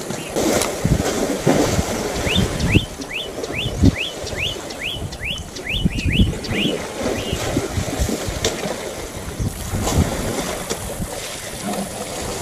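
Wind buffeting the microphone, with water sloshing around elephants bathing in a waterhole. From about two to seven seconds in, a bird gives a run of about ten quick upward-sweeping notes, roughly two a second.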